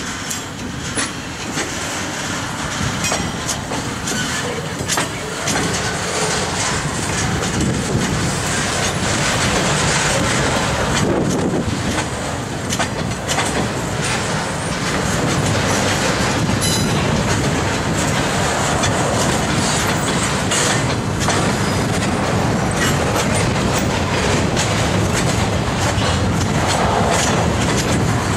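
Freight train of double-stacked intermodal container well cars rolling past, its wheels and couplers giving a steady rumble with scattered clicks and knocks. The sound builds over the first several seconds, then holds steady.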